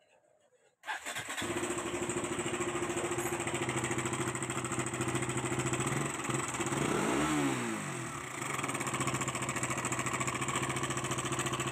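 KTM Duke 200's single-cylinder engine starting about a second in and idling, with one short blip of the throttle around the middle that rises and falls before it settles back to idle. It carries the abnormal timing-chain noise that the mechanic traces to a slack chain from a faulty timing chain adjuster.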